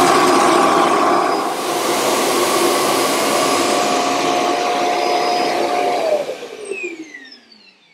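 Ultenic T10 Elite's self-emptying dock sucking the dust out of the robot vacuum's bin: a loud suction noise with a steady whistle. About six seconds in the suction motor cuts off and winds down with a falling whine.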